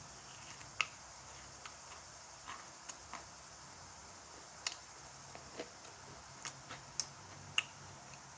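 Close-miked eating sounds: wet, sticky clicks and smacks of chewing, coming at irregular moments about ten times over a faint steady hiss.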